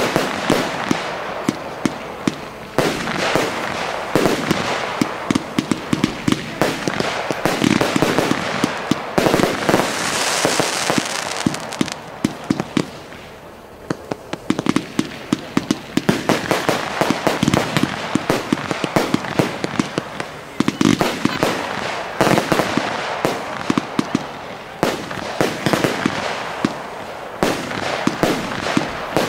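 Fireworks display: volleys of aerial bursts, many sharp bangs in quick succession over a constant crackle, with a hissing stretch about a third of the way in and a short lull just after.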